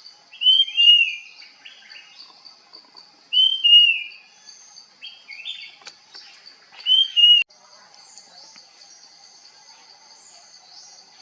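Puff-throated babbler singing: three loud whistled phrases about three seconds apart, each built on a note that rises and then falls, with softer notes between them. A steady high buzz runs underneath.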